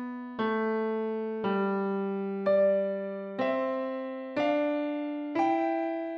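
Background music: an electric piano playing one note or chord about once a second, each fading away before the next.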